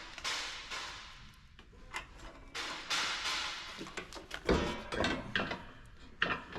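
Scraping, rustling and clunking as a DEF pump and sensor assembly is worked into a plastic DEF tank, with scattered clicks and a louder knock about four and a half seconds in.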